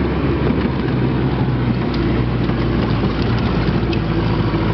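Off-road 4x4 engine running steadily while driving across sand, a constant low hum with rushing noise over it.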